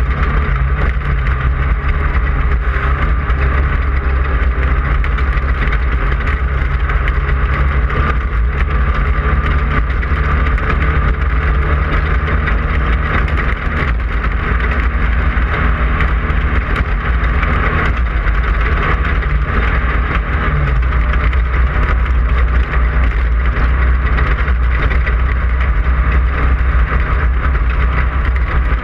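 Class 5/1600 off-road race car's air-cooled 1600cc Volkswagen flat-four running steadily at racing speed, a constant low drone with a steady noisy hiss over it.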